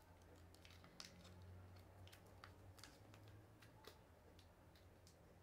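Near silence with faint, scattered crinkles and ticks of a small slip of paper being folded by hand.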